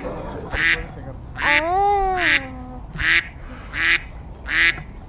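A duck quacking in a steady series, one raspy call about every three quarters of a second. A child's drawn-out voice rises and falls once partway through.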